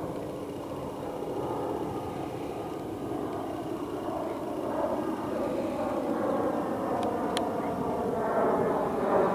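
Boeing 747-400 freighter's four turbofan jet engines passing overhead on approach, a steady jet rumble that grows steadily louder.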